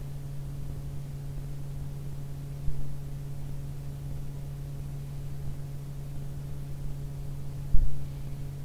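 Steady low electrical hum over a hiss of background noise, broken by two dull low thumps, one about a third of the way in and one near the end.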